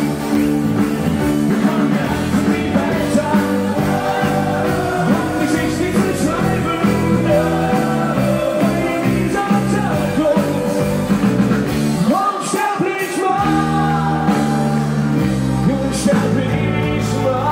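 Live rock band playing a song with singing, guitars and drums; the bass and drums drop out for about a second around twelve seconds in, then come back.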